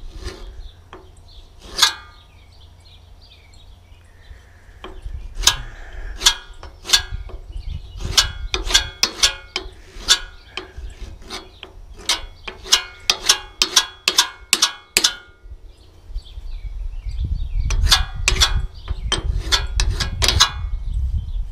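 Short, sharp metal-on-metal scraping strokes on a New Holland 474 sickle bar, as dirt is scraped off the seat so a knife section sits down flat. A few strokes come at first, then a long quick run of several a second, a pause, and a second run near the end.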